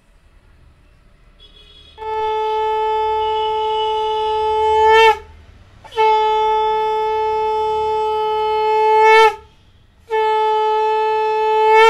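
A conch shell (shankha) blown three times in long, steady blasts, each swelling louder before breaking off, as is customary when offering food to the deity at a Hindu puja.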